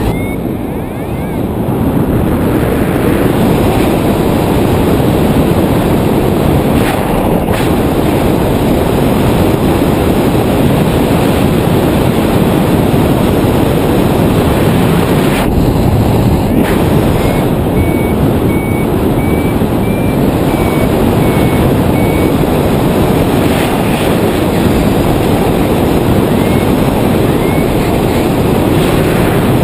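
Wind rushing over the camera microphone of a paraglider in flight, loud and steady. Through it, a variometer beeps in short, evenly spaced pips that rise slightly in pitch in a few stretches, longest in the middle: the sign of the glider climbing in lift.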